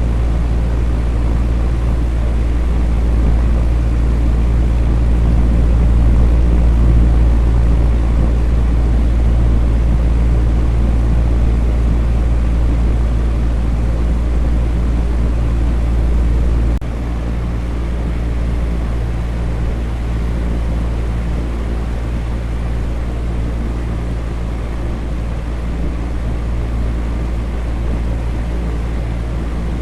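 Electric fan running steadily: a low hum under an even, airy whoosh. The hum drops suddenly in level a little past halfway, then runs on unchanged.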